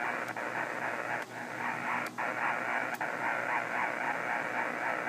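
Power line interference heard through a Kenwood HF transceiver's speaker in AM mode: steady, strong noise across the receiver's passband, about S9 on 20 meters and enough to bury weaker signals. Four short clicks come as the tuning steps down a megahertz at a time toward 14 MHz.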